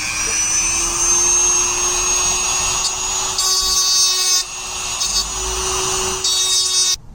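Dremel rotary tool running at high speed with a steady whine, grinding down an obstructing projection. Rougher grinding comes in about three and a half seconds in and again near the end, and the tool cuts off suddenly just before the end.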